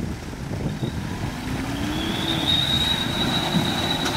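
Winch hauling a Toyota Land Cruiser Prado through deep mud, with the engine rumbling underneath. The winch whine rises and then holds steady, and a thin high whine joins about two seconds in.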